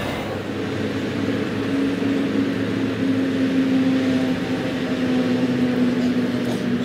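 Steady low mechanical drone of a running engine, its main hum sinking slightly in pitch.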